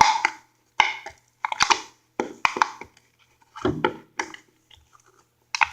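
Homemade shaving-cream slime being worked by hand, in about six short crackling, crunching bursts with brief silences between.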